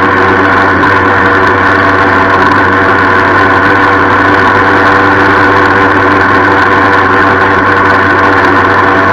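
Yamaha FS-1 moped's 49cc two-stroke single-cylinder engine running at a steady speed on the move, loud and even, with a metallic rattle over it. The engine does not run as smoothly as it should.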